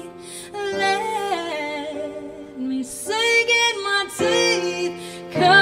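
A woman singing long, gliding vocal phrases with short breaks between them, over sustained chords played on a digital piano.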